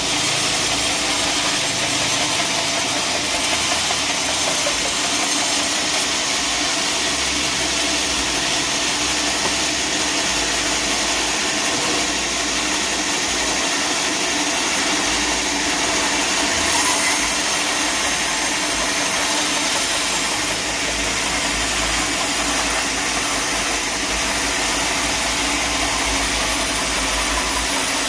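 Sawmill machinery running steadily with a constant mechanical drone.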